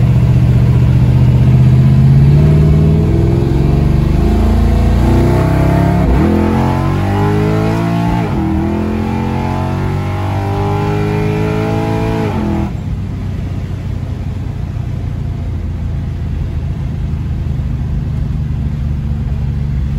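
A V8 muscle car's engine running loudly, then pulling away with its note climbing and dropping several times. About thirteen seconds in the sound falls off suddenly to a quieter rumble.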